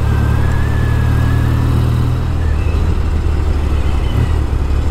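Norton Commando parallel-twin engine running as the motorcycle is ridden. Its note steps down a little about two seconds in.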